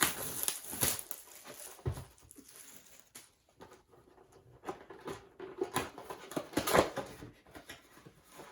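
Irregular rustling, scraping and clicking of a cardboard trading card box and its foil card packs being handled and opened.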